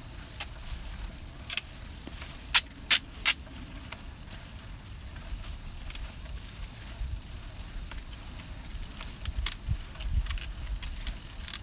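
Wind buffeting the microphone as a low, uneven rumble, with a handful of sharp clicks or knocks: four loud ones within the first few seconds and a few smaller ones near the end.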